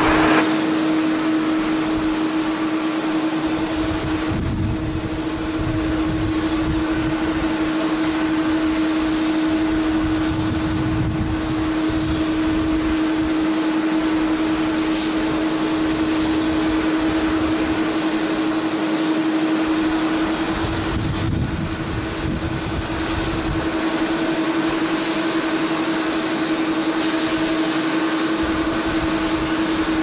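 Jet airliner engines at an airport: a steady rushing noise with a constant low tone and a faint high whine that hold unchanged throughout.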